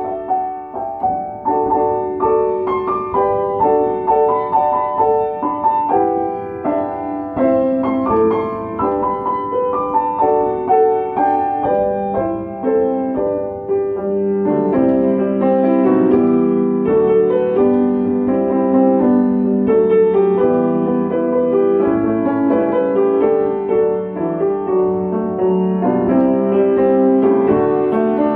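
Upright piano played solo: a gospel song melody over chords, with the lower notes growing fuller and more sustained about halfway through.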